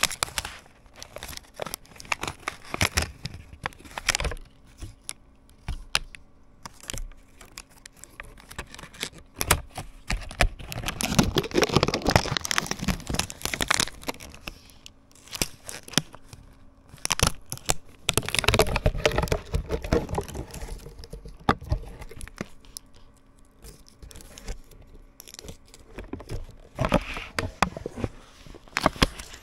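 An old laptop keyboard being pulled apart by hand: its thin plastic membrane sheets crinkle and tear, with scattered clicks and snaps of plastic parts. Two longer stretches of crinkling and peeling come about eleven and eighteen seconds in.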